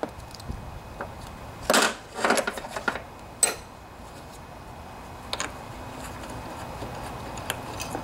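Ratchet and hands working the float-bowl bolt of a Briggs and Stratton lawnmower carburetor: a few short clattering handling noises around two seconds in, then a sharp metallic click, then a few fainter ticks.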